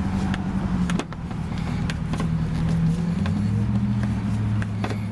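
Steady low hum of a running motor vehicle engine, its pitch shifting a couple of times, with scattered light clicks over it.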